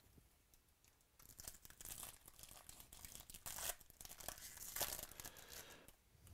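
Foil trading-card pack wrapper being torn open by hand, crinkling and ripping in a run of crackly bursts from about a second in, loudest around the middle.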